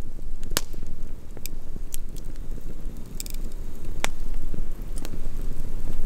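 Wood fire burning in a fire pit, crackling with scattered sharp pops over a steady low rumble. The two loudest pops come just over half a second in and about four seconds in.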